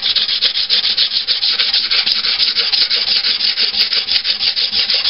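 150-grit sandpaper rubbed by hand over hardened Bondo body filler in quick, even back-and-forth strokes, several a second, a steady scratchy rasp. The filler's still-tacky outer skin is clogging the paper.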